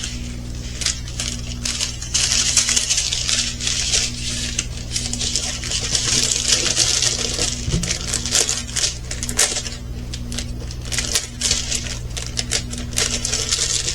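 Small plastic bags of resin diamond-painting drills being handled and shuffled: a steady crinkling with many small clicks and rattles.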